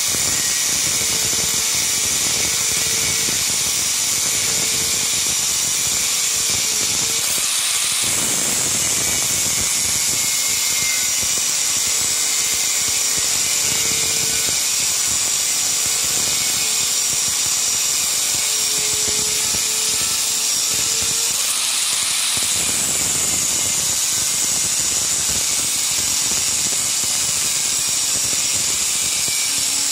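Handheld angle grinder with a thin abrasive cut-off disc cutting through solid round steel bar: a steady, high-pitched grinding hiss and squeal over the motor's whine, continuous under load, with the sound briefly shifting twice, about 8 and 22 seconds in.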